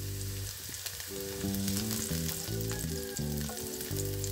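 Sliced shallots and dried chillies sizzling and crackling in hot oil in a nonstick wok, stirred and scraped with a spatula. Guitar music plays underneath.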